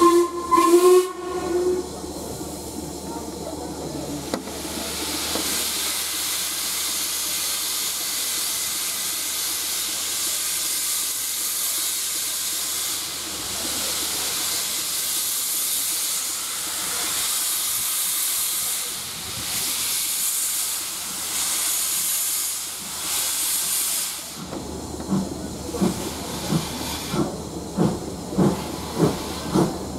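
Steam locomotive LMS Ivatt Class 2MT 2-6-2T No 41313 pulling away: a short whistle at the start, then a long steam hiss that swells and falls in pulses. About 25 seconds in, its exhaust beats start and quicken as the train gathers speed.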